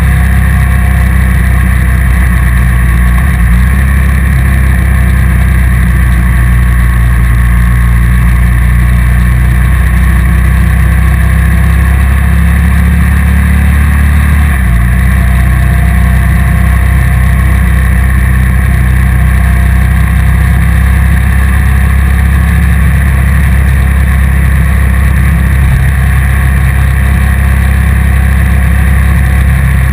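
Motorcycle engine running at a steady cruising pace under loud wind noise on the on-board microphone, with one shift in the engine note about halfway through.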